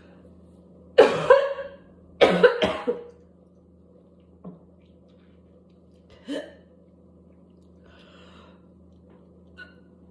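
A person coughing hard from whooping cough: a quick run of several coughs about a second in, another run about two seconds in, then a single shorter cough near the middle and quieter breathing afterwards.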